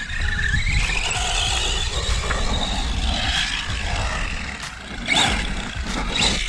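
Electric motor of a radio-controlled car whining, rising in pitch about a second in as the car speeds up.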